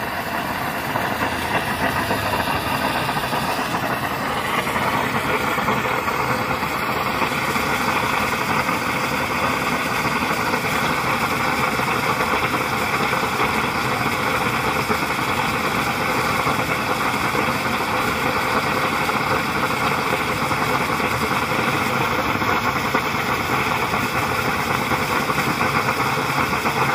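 Steady, loud rushing noise while water is drained out of a household gas line at the meter; the water had collected in the pipe and blocked the gas supply.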